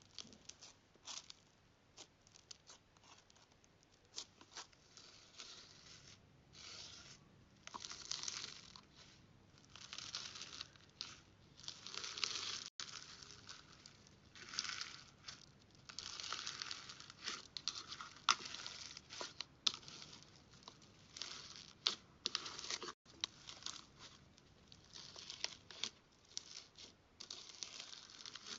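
Hands squishing, stretching and poking slime: sticky crackling and popping, first as scattered sharp clicks, then in longer crackly swells.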